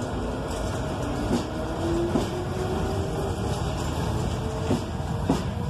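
Tatra-Smíchov-built EMU 89.0 electric railcar set rolling past: a steady low rumble with a faint whine that rises in pitch, and a few sharp knocks from the wheels on the track.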